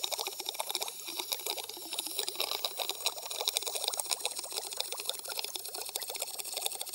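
Air from a deflating balloon jetting out through a pen tube under water, a steady fizzing bubbling and gurgling as it pushes a small model boat along.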